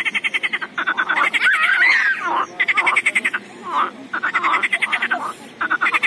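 A chorus of pond frogs calling: rapid rattling croaks in repeated bursts of about half a second to a second, overlapping with warbling, wavering calls from other frogs.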